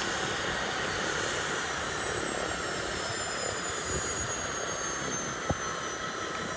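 Bell 206 LongRanger helicopter winding down after shut-down: the turbine's whine slowly falls in pitch over the steady rush of the slowing main rotor. A single sharp click sounds near the end.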